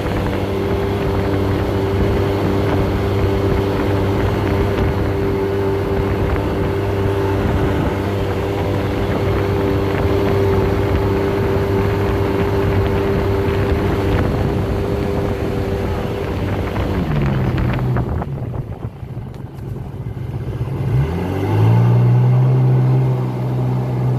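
Sea-Doo watercraft's two-stroke engine running steadily at cruising speed, with the rush of water under the hull. About two-thirds of the way through it throttles down and the pitch falls away. A few seconds later a rising tone settles into a steady lower hum.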